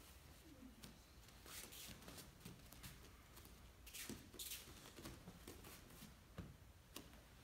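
Near silence, with a few faint soft rustles of bare feet and clothing on martial-arts mats as two people step toward each other and grapple.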